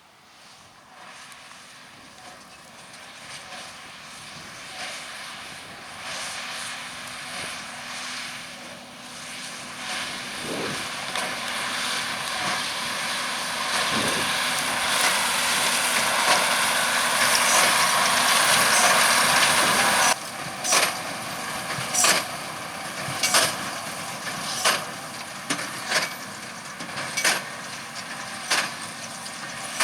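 Tractor and Massey Ferguson 2170 large square baler running, growing steadily louder as they draw near. After a sudden cut, the baler's plunger thumps regularly, about every second and a quarter, over the steady running of the machine.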